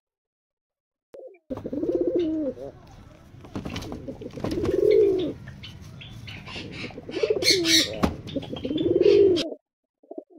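Fancy domestic pigeons cooing: four rising-and-falling coos a couple of seconds apart, with scattered clicks and rustles between them. The sound begins about a second and a half in and cuts off suddenly near the end.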